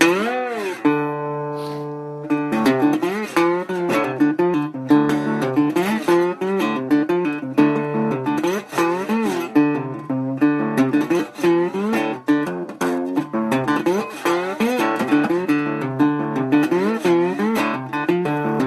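Guitar played with a slide: plucked notes swooping up and down in pitch over steady low notes, growing busier about two seconds in.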